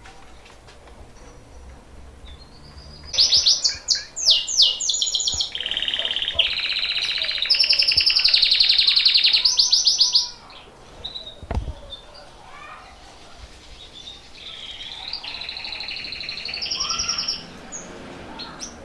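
Canary singing in two long, fast trilled phrases, the first about three seconds in and the second in the latter half, the song of a bird coming into breeding condition. A short thump comes between the phrases.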